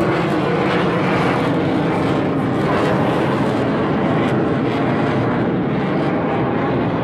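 Military jet aircraft flying past in a steady, loud roar.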